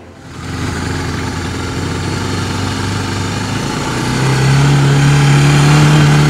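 Honda ATV engine running, then rising in pitch and getting louder about four seconds in as the quad speeds up across the sand.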